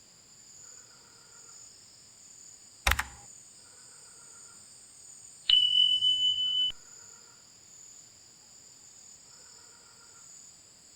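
Steady high insect chorus, with a faint call repeating about every three seconds from an unseen bird that sounds like a loud frog. A sharp click about three seconds in, and a steady high beep lasting about a second near the middle.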